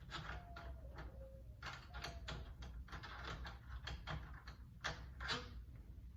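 Door handle and lock hardware being fitted by hand: a run of light clicks, taps and scrapes of metal parts as screws are worked into place, the loudest about five seconds in.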